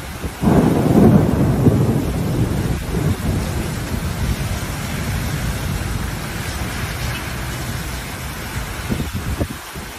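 Heavy rain on a flooded street, with a loud rumble of thunder that breaks about half a second in and rolls away over several seconds. Later, a car's tyres swish through the standing water.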